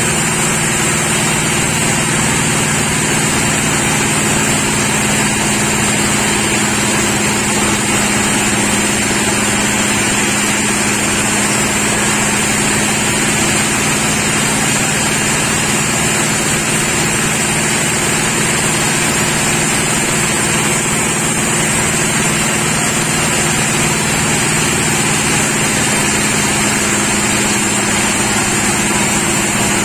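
Sawmill machinery running steadily at one constant pitch, with a high whine over it and no change for the whole time.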